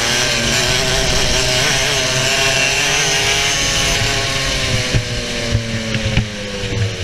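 TKM BT82 100cc two-stroke kart engine running at high revs, its pitch falling slowly over the last few seconds as the revs drop, with a few sharp knocks about five to six seconds in.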